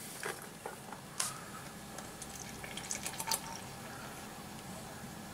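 Milk pouring from a carton into a glass onto cocoa powder, a faint trickle and splash, with a couple of light knocks from handling the carton and glass in the first second or so.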